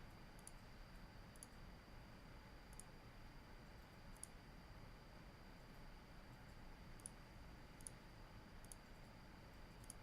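Faint computer mouse clicks, about eight of them at irregular intervals, over a low hum and a thin steady whine.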